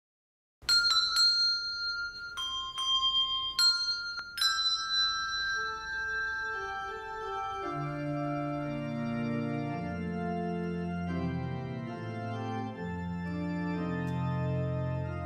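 Organ music: a few separate high notes, then held chords that fill out with lower parts and bass about seven seconds in.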